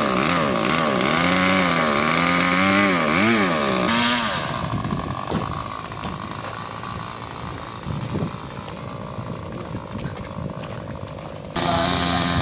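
Paramotor's small two-stroke engine revving up and down several times for about four seconds, then dropping away so that only a rushing noise is heard. About a second before the end, the engine sound comes back suddenly at a steady speed.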